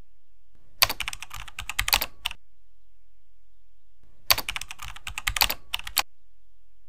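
Typing on a computer keyboard: two quick bursts of keystrokes, each about a second and a half long, with a pause of about two seconds between them.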